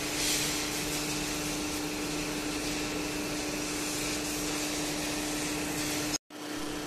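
Workshop machinery running steadily: an electric motor's constant hum with a hiss over it. It breaks off abruptly for a moment about six seconds in.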